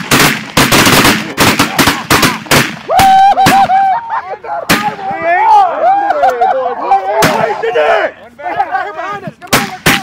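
Volley of shotgun fire as a flock of geese is shot into: a rapid string of shots over the first three seconds, then scattered single shots, with geese honking between the shots.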